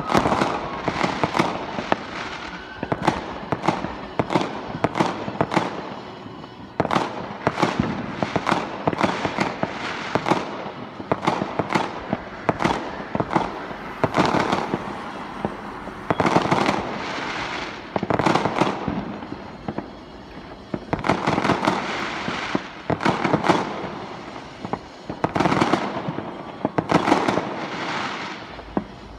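Many fireworks going off at once: a near-continuous barrage of sharp bangs and crackling that swells in clusters every second or two.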